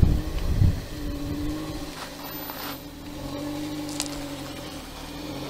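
Car engine running steadily, with low rumbling thumps in the first second.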